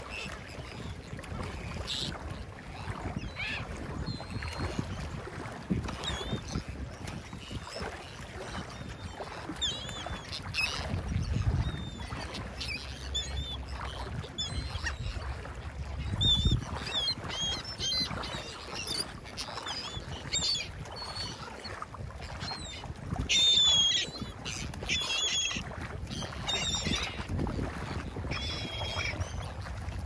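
Gulls calling overhead, with short squawks that come thick and fast through the second half, over a steady rumble of wind on the microphone.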